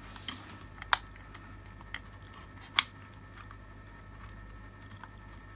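Sharp clicks and light knocks of the security light's plastic housing being fitted back together by hand: a few separate clicks, the loudest about a second in and again near three seconds.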